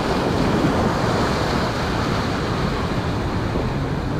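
Ocean surf: waves breaking and washing up the beach in a steady rush that swells slightly in the first second.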